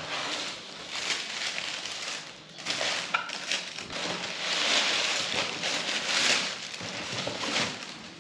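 Tissue paper rustling and crinkling as sneakers are unwrapped from a cardboard shoebox, with a few light knocks from the box being handled.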